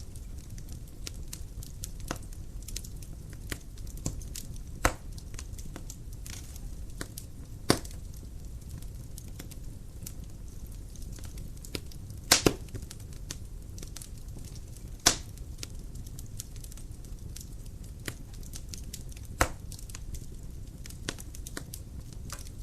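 Dry firewood burning in a fireplace: a low steady flame rumble with constant crackling and a handful of louder sharp pops.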